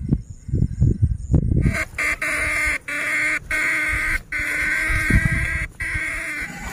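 Feet and shocker poles splashing through shallow water, then from about a second and a half in a battery-powered electric fish shocker buzzing steadily as it discharges into the ditch water, cutting out briefly a few times.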